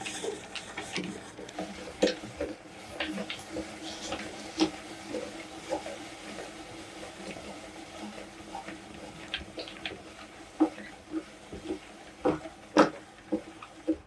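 Meat grinder crushing biscuits: irregular crunches and cracks, the loudest near the end, over a faint steady hum.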